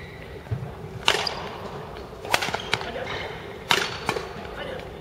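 Badminton rackets striking a shuttlecock in a doubles rally: a string of sharp hits roughly a second apart, with short squeaks of shoes on the court floor between them.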